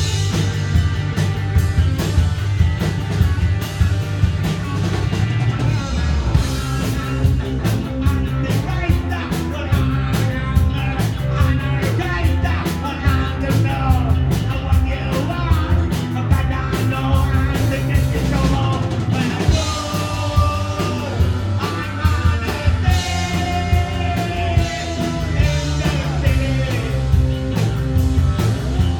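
Punk rock band playing live: drum kit, bass and electric guitars, with a singer's voice over them.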